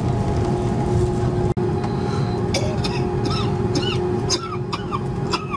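Steady cabin hum of an Airbus A330-300 on the ground, with a couple of steady tones in it. From about halfway, short high squeaky sounds come several times over the hum.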